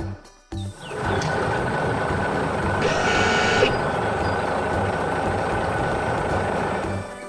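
A heavy vehicle engine running steadily, with a short high-pitched tone about three seconds in.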